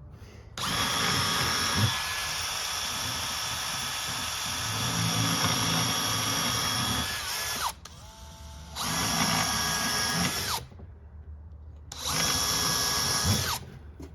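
Power drill boring screw holes through plywood in three runs: one long run of about seven seconds, then two short ones. The whine winds down in pitch each time the trigger is released.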